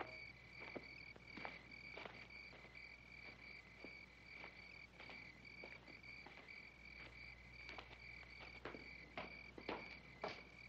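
Crickets chirping steadily in a rapid pulsing trill, faint, with slow, even footsteps about every two-thirds of a second.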